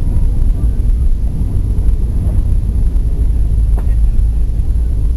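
Loud, steady low rumble inside an Airbus A320 cabin during the landing roll: engine roar and the wheels running on the runway. A faint click about four seconds in.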